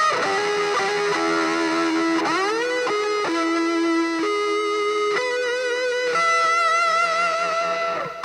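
Music: an electric guitar plays a lead line of long held notes that slide between pitches and waver with vibrato.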